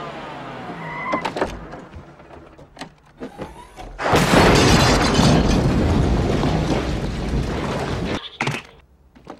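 A motor dies away and a few sharp knocks follow. About four seconds in comes a loud crash with breaking and shattering, which lasts about four seconds and then cuts off suddenly.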